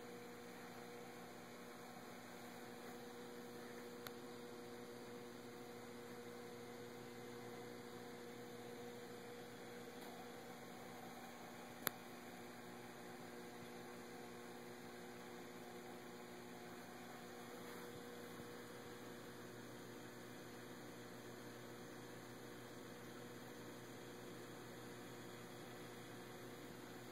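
Faint, steady electrical hum from the reef aquarium's pump equipment, a low buzz with a few higher overtones, and a sharp click about twelve seconds in and a smaller one about four seconds in.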